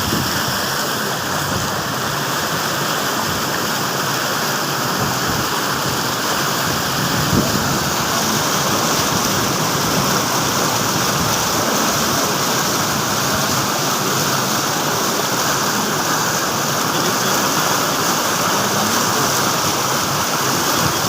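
Steady rush of floodwater flowing across a road like a river, an even, unbroken noise.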